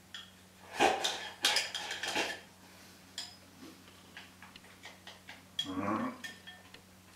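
Chopsticks clattering and scraping against a ceramic rice bowl as rice is shovelled from it into the mouth, in a dense run of clicks about a second in and lighter ticks after. A short voiced sound comes near the end.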